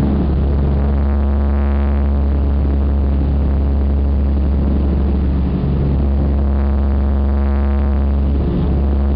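Douglas DC-3's twin radial piston engines and propellers droning in cruise, heard from inside the cabin: a loud, deep, steady hum.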